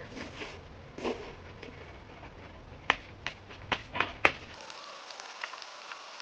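A person eating: quiet mouth sounds with five short, sharp clicks between about three and four and a half seconds in.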